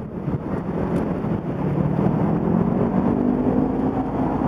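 City street traffic: a steady rumble with a bus's engine hum that grows louder about a second and a half in.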